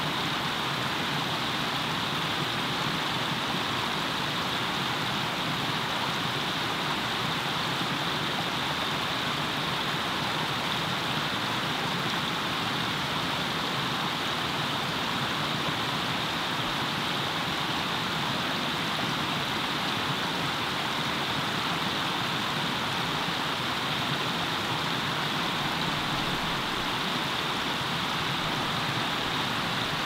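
Steady rush of a shallow stream sliding down bare rock slabs as a small cascade, an even hiss of running water.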